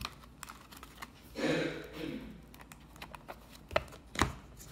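Small packaged items being handled and set down on a table: scattered light clicks and taps, a brief rustle of packaging about a second and a half in, and a few louder taps near the end.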